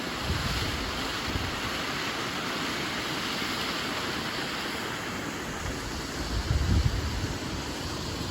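Waterfall rushing steadily, with wind buffeting the microphone in low gusts, the strongest about six and a half seconds in.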